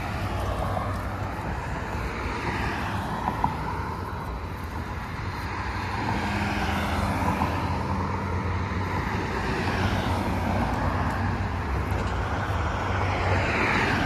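Road traffic: a steady rumble of cars, with a few swelling louder as they pass and fading again.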